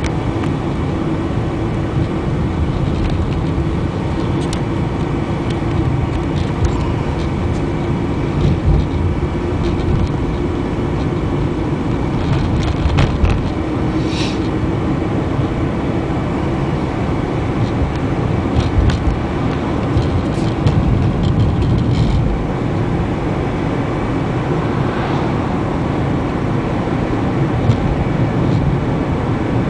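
Car driving steadily along an asphalt road: continuous engine and tyre rumble, with a few brief clicks and rattles.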